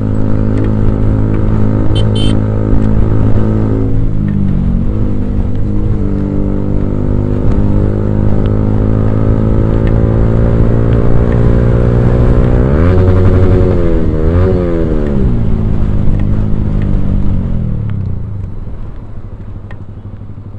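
Yamaha R15M's single-cylinder engine through a loud Akrapovic aftermarket exhaust, heard from the rider's seat while riding. The pitch drops and climbs again at gear changes a few seconds in, rises and wavers with revving about two thirds of the way through, then falls away and gets quieter near the end as the bike slows.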